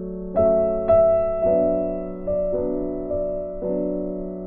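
Background piano music: slow, soft chords struck every half second to a second, each ringing and fading.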